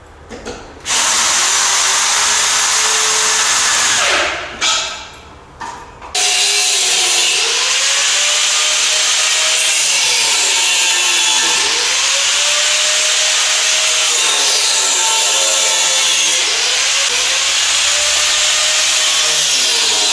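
Power tool motor running in two long stretches, briefly stopping in between. Its pitch sags and recovers several times, as under changing load.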